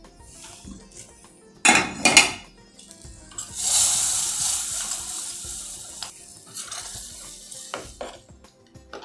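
Metal utensils clatter twice, then there is a sharp sizzle as hot ghee tempering with mustard seeds and asafoetida is poured from an iron tadka ladle into the sambar. The sizzle fades over a few seconds, followed by a few light spoon clinks against the pan as it is stirred in.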